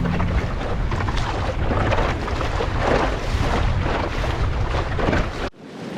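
Wind buffeting the microphone over water rushing along the hull of a small sailing dinghy under way, a steady rough noise that cuts off abruptly near the end.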